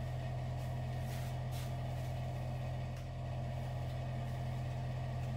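A few short, faint spritzes of aerosol hairspray, two about a second in and one near three seconds, over a steady low hum that is the loudest sound throughout.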